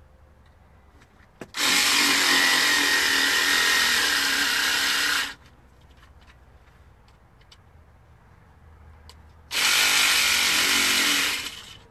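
Small electric carving tool running as it cuts through a pumpkin's rind, in two steady bursts: about four seconds starting shortly after the first second, then about two seconds near the end.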